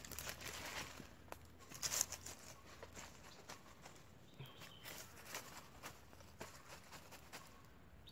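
Dry leaf litter and twigs crackling faintly as they burn in a small smoky fire, with irregular small snaps and one louder pop about two seconds in.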